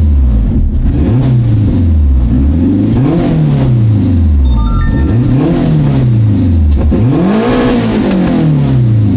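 Turbocharged Renault Clio engine, heard from inside the cabin, being revved repeatedly with no load: four blips in a row, each climbing to around 5,000–5,600 rpm and dropping back. The freshly assembled engine is running again.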